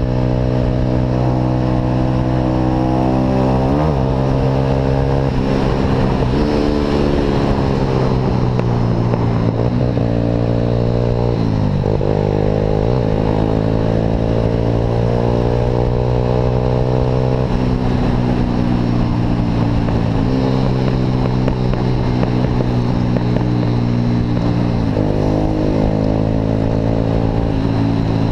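Motorcycle engine breathing through an aftermarket Atalla exhaust while riding. The exhaust note holds fairly steady, with its pitch dropping sharply and climbing back several times, around 4, 12, 17 and 25 seconds in, as the throttle and gears change.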